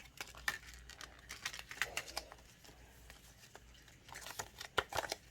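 Packaging being torn open and crinkled by hand: irregular crackles, rustles and small clicks as a blind-box figure is unwrapped.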